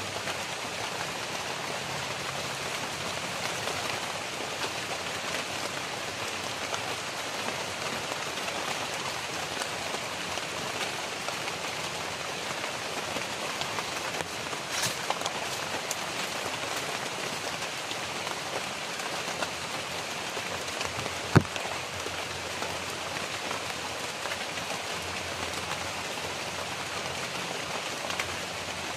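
Steady rain falling on the leaves of dense tropical undergrowth, with a single sharp tap about three-quarters of the way through.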